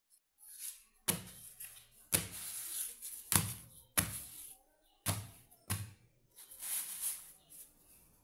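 Hands handling soft flatbreads on a tabletop: about six knocks and thuds, with rustling between them.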